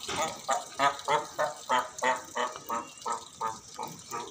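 Cape fur seals squabbling: a rapid string of short, pitched barking calls, about three a second, as a bull and a young seal face off muzzle to muzzle.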